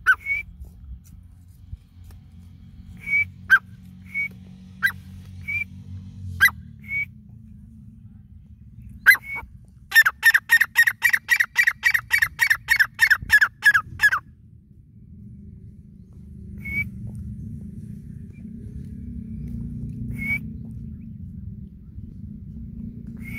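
Grey francolin calling: a few short, high notes at first, then a rapid, loud run of about seventeen notes, some four a second, lasting about four seconds, followed by a few more single notes. A steady low rumble runs underneath and grows louder in the second half.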